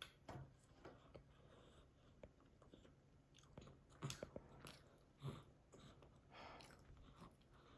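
Near silence: faint room tone with a few brief, scattered clicks and crunches, the clearest about four seconds in and again about five seconds in.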